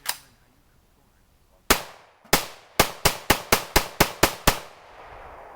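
Kel-Tec SU-16 .223 semi-automatic rifle firing about eleven shots: a single shot, two more spaced out, then a rapid string of eight at about four shots a second. The last shot rings away in a long fading echo.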